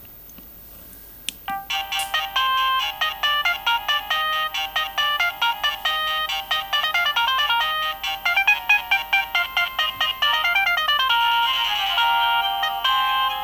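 Siemens A55 mobile phone playing a ringtone: a fast electronic melody of short, quick notes that starts about a second and a half in, thin with no bass, with a quick falling run of notes near the end.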